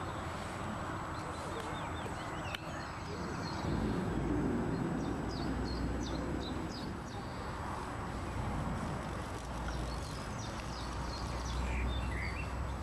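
Outdoor background: small birds chirp now and then over a low rumble, which grows louder about four seconds in.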